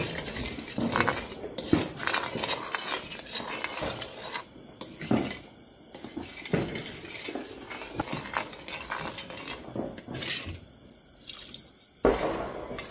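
Wooden spatula stirring and scraping the bottom of an aluminium kadai of sugar and water heating over a wood fire, in irregular strokes with light knocks against the metal. A louder knock comes near the end.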